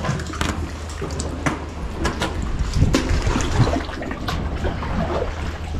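Sea water sloshing and lapping around a kayak and against the rocks, with scattered short, sharp splashes and drips.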